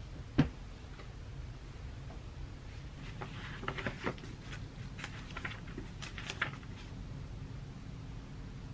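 A single thump about half a second in, then crisp rustling and crinkling of thin Bible paper as the pages are handled and turned, over a low steady room hum.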